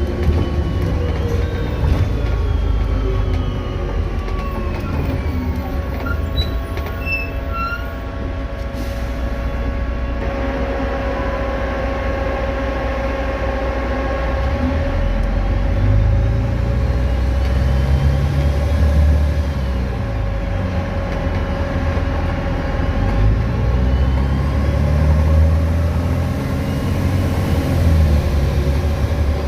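VDL DB250 double-deck bus running under way: a deep diesel engine rumble that rises and eases with the load, under the steady whining drone of its electric cooling fan, the 'hoover' sound.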